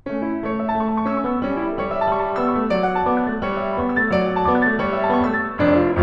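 Piano music that begins suddenly with a run of quick notes over sustained lower notes; a louder, deeper note comes in near the end.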